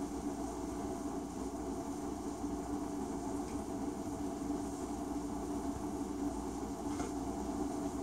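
A steady, unchanging low hum with hiss, machine-like, with two faint clicks about three and a half and seven seconds in.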